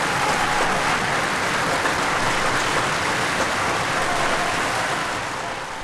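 Opera audience applauding after the duet, an even clatter of clapping on a 1955 live recording transferred from LP. The applause fades out near the end.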